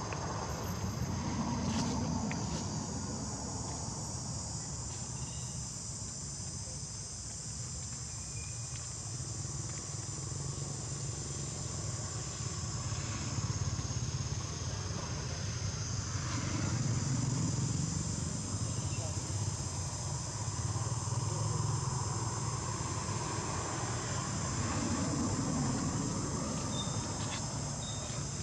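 Steady, high-pitched insect chorus, with a low rumble that swells and fades three times.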